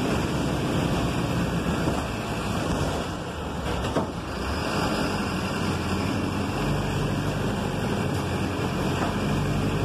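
City bus's diesel engine and road noise heard from inside the cabin, a steady drone. It dips briefly with a single knock about four seconds in, then the low engine note grows stronger as the bus pulls on.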